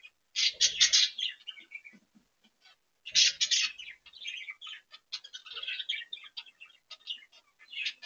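Budgerigars chirping and warbling, with two loud bursts of chatter about half a second and three seconds in, then steady chattering.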